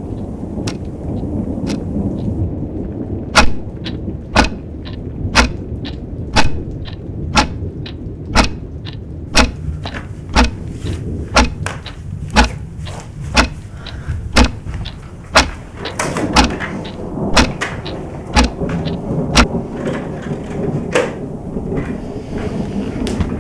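Sharp knocks, about one a second, keep a steady beat over a continuous low rumble. They start a few seconds in and stop a couple of seconds before the end.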